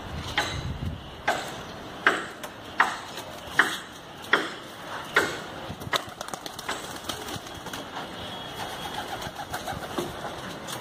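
Domestic pigeon: a series of short, sharp calls about one every three-quarters of a second, then flapping wings as it takes off.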